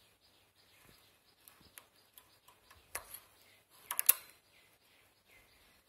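Light metallic clicks of a hand flat knitting machine's needles and a transfer tool as loops are moved onto a needle and the needle is pushed back. A few faint ticks, one sharper click about three seconds in, and a quick cluster of sharper clicks about a second later.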